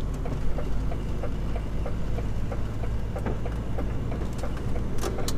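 Lorry's diesel engine running with a steady low hum inside the cab, while the turn-signal indicator ticks regularly, a little under three ticks a second. A couple of sharp clicks come near the end.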